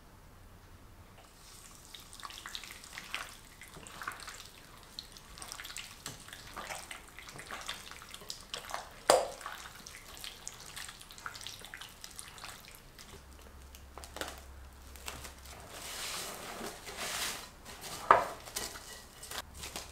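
Gloved hand squishing raw chicken pieces through an oily yogurt-and-spice marinade in a glass bowl, making irregular wet squelching and slapping. Two sharp knocks stand out, one about halfway and one near the end.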